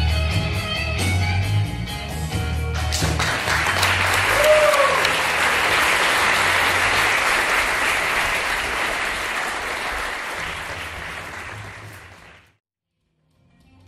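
A guitar-backed song ends about three seconds in, and an audience applauds. The applause fades out to silence near the end.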